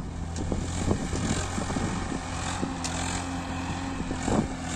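Tractor diesel engine running steadily under load as it pulls a trolley full of soil, with a few short knocks.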